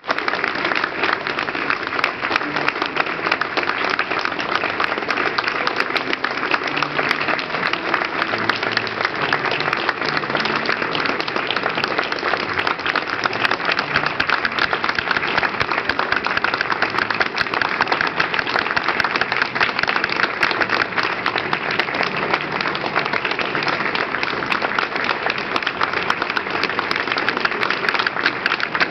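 Audience applauding steadily, a dense, even patter of many hands clapping.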